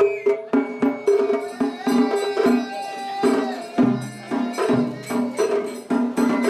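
Festival hayashi music: taiko drums on a festival float, a large barrel drum and two rope-tensioned shime-daiko, beaten in a quick, steady beat, with a bamboo flute playing over it.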